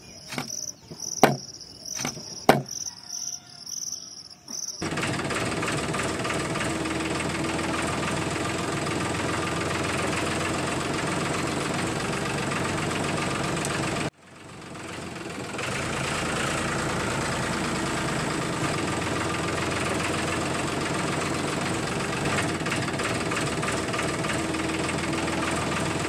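Crickets chirping with a few sharp clicks as 9-volt batteries are handled, then a steady engine-like motor drone starts about five seconds in. The drone cuts out abruptly past the middle and swells back within a second or so.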